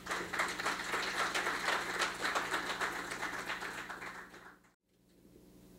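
Audience applauding, fading and then cutting off suddenly about four and a half seconds in, leaving only faint room hum.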